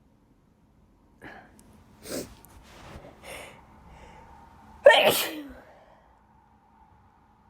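A woman's allergic sneeze. A few short, catching breaths build up, then one loud sneeze bursts out about five seconds in and trails off.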